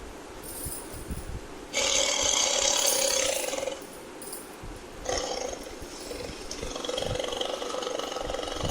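Tiger roaring: a loud, raspy roar about two seconds in, lasting about two seconds, then a longer, quieter growling roar from about five seconds in.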